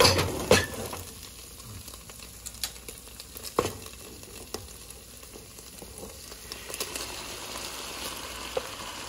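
Beef cubes frying in a pan, with a steady sizzle. A wooden spoon stirs and scrapes, and a few sharp knocks of utensils against the pan come near the start and again a few seconds in.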